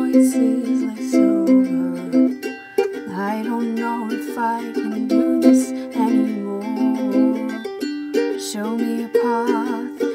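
A song: plucked strings, which the tagger files as ukulele, hold steady chords throughout, and a voice sings long wavering notes over them a few seconds in and again near the end.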